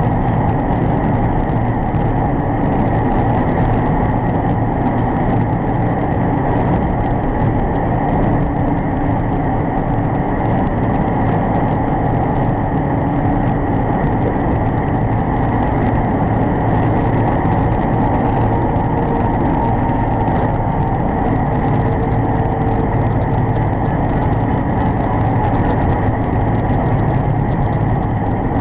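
Steady engine drone and road noise inside the cab of a semi truck cruising at about 55 mph on the highway.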